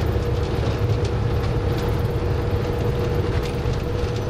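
Minibus engine and road noise heard from inside the cabin while driving, a steady low rumble with a thin steady whine above it.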